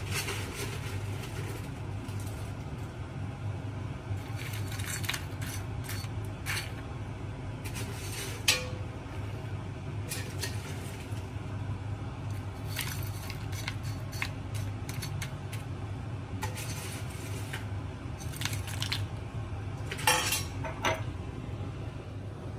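Fried tapioca chips being stirred and tossed with chilli powder in a dish, with scattered clinks and scrapes against the dish over a steady low hum. There is a sharp click about a third of the way in and a louder clatter near the end.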